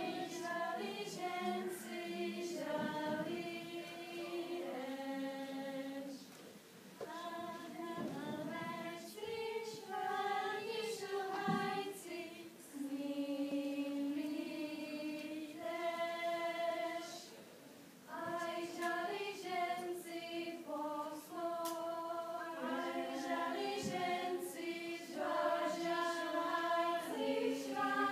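A choir of young voices singing a song in Czech, in phrases of held notes with short breaks between them.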